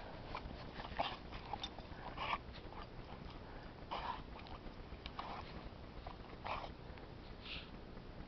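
A dog snuffling and huffing as it noses into snow and mouths a sled's tow rope: short, irregular breathy puffs about a second apart.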